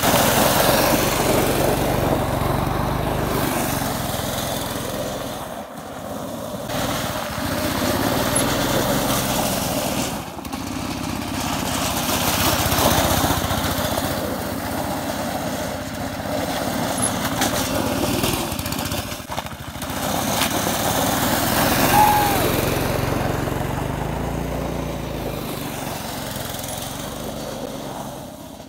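Go-kart's small engine running hard while its single driven rear tire, worn to a slick, spins on loose gravel and throws stones. The engine noise rises and falls in several stretches, with brief dips in between.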